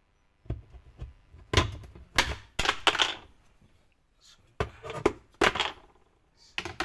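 Washing machine casing being handled and opened: irregular clusters of knocks, clatters and scrapes with short pauses between.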